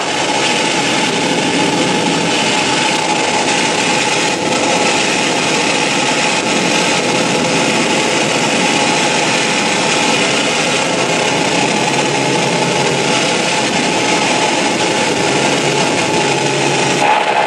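Loud, dense, steady wall of harsh noise played live on electronics, changing little until a brief shift in texture near the end.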